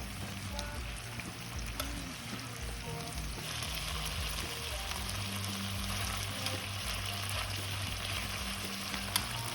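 Food frying and sizzling in a hot pan; the sizzle grows louder about three and a half seconds in, with a sharp click near the end.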